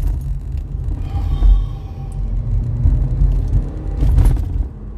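Low, steady rumble of a car on the road, heard from inside the cabin, with a brief louder bump a little after four seconds in.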